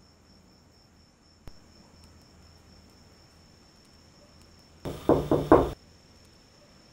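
A steady high cricket trill, broken about five seconds in by three quick, loud knocks, as on a door.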